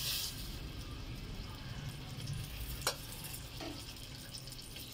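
Cooking oil poured in a thin stream into an aluminium pot at the start, then a faint steady hiss with one sharp click about three seconds in.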